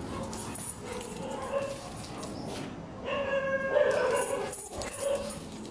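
Long-coat German Shepherd whining, in drawn-out high cries that grow louder a little past halfway.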